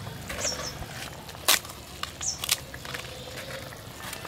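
Crisp fried papads (appalam) snapping as they are broken by hand into pieces, with a sharp crack about a second and a half in and a smaller one a second later.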